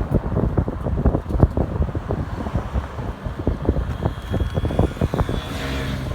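Wind buffeting the microphone in dense, irregular low thumps, with a thin steady high whine coming in about four seconds in and a brief low hum near the end.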